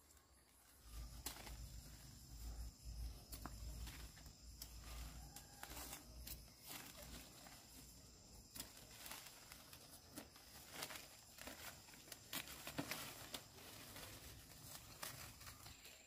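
Faint, irregular rustling, tearing and crackling of plant material being handled, with scattered sharp clicks. Under it runs a steady high insect drone, and a low rumble comes in the first few seconds.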